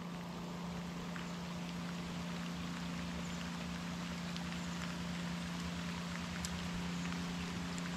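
Light rain falling on the lake and boat, a steady hiss with scattered tiny drop ticks, over a steady low hum.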